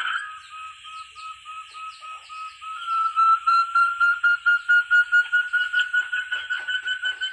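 Calling of a forest partridge (puyuh hutan, the 'terung' bird): a long series of short whistled notes, steady at first, then from about three seconds in growing louder, faster and slightly higher in pitch. A faint steady high tone runs underneath.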